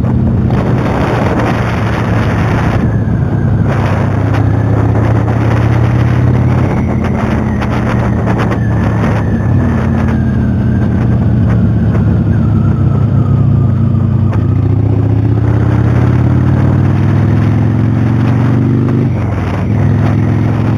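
Motorcycle engine running under way, its revs climbing slowly and then dropping sharply near the end, as at a gear change.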